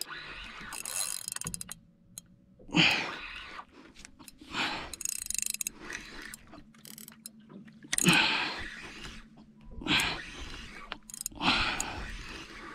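An angler breathing hard in separate heavy breaths every second or two while fighting a fish hooked on a vibe lure, with the faint mechanical sound of a fishing reel being wound.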